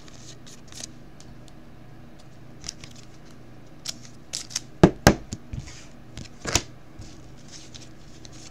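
Trading cards and a clear plastic card holder being handled: soft rustling and small clicks, with a few sharper plastic clicks and scrapes about five seconds in and again a second and a half later.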